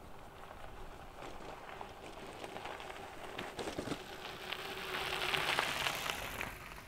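Mountain bike tyres crunching over a gravel track as a loaded bikepacking bike rides up and passes close by, a crackle of small stones growing louder to a peak about five seconds in, then fading.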